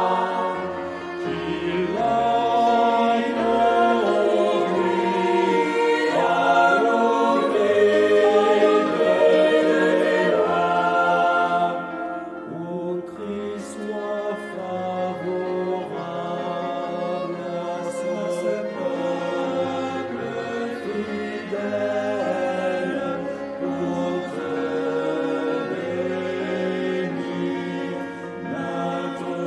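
Background choral music: a choir singing slow, held chant-like notes, a little quieter from about twelve seconds in.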